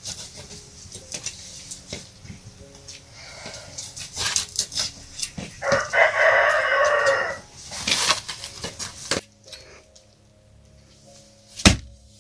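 Hatchet blows chopping through rib meat and bone on a wooden chopping stump, a series of sharp knocks, the hardest near the end. A rooster crows once midway, one long call of about two seconds.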